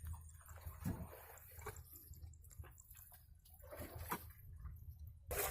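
Faint scattered drips and small splashes of water, over a low steady hum.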